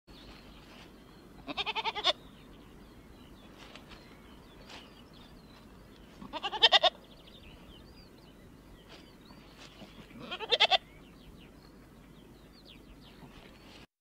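Goat bleating: three short quavering bleats, each about half a second long, spaced about four seconds apart.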